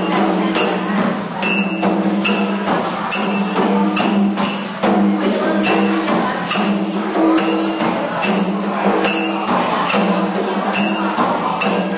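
Music with a steady percussive beat, about two strikes a second, over held low notes.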